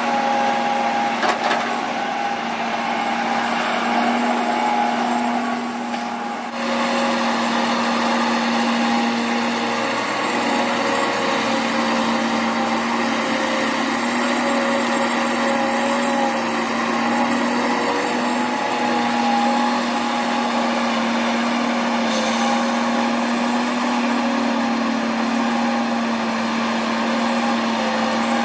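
Heavy earthmoving machine's diesel engine running steadily under work, with a steady whine over the engine noise and a brief slight drop about six seconds in.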